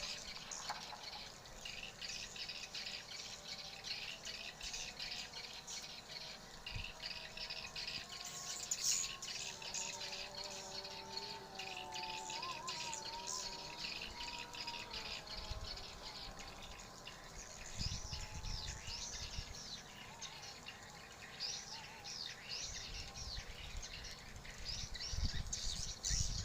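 A flock of swiftlets twittering: a dense, unbroken stream of rapid high-pitched chirps. A faint wavering tone rises and falls beneath the chirping in the middle.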